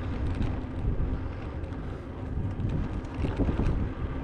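Wind buffeting the microphone of a camera on a moving bicycle, a steady low rumble.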